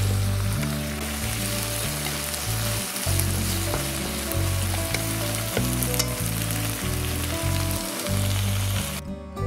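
Taro, bacon and green onion sizzling in butter in a nonstick frying pan as they are stirred with chopsticks, the moisture nearly cooked off. The sizzling cuts off suddenly near the end.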